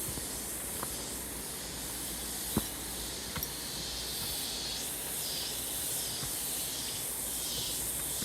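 Steady rushing hiss of a waterfall heard through the forest, with a higher hiss that swells and fades a few times and a few faint clicks.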